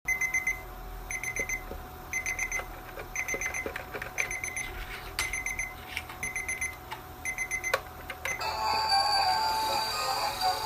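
Claw-machine toy alarm clock ringing: quick bursts of about four high electronic beeps, repeating roughly once a second. About eight seconds in, the beeping gives way to an electronic tune.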